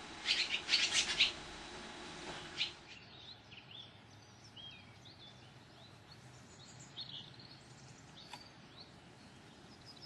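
Swallow chirping at its nest: a quick cluster of loud, short, high chirps in the first second or so and one more a little later, followed by fainter scattered bird chirps and short whistles.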